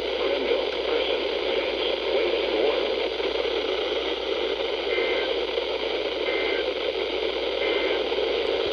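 Weather radio receiver putting out steady static hiss with no voice on the channel. In the second half come three short, faint two-tone data bursts, the pattern of an Emergency Alert System (SAME) data code such as the end-of-message signal.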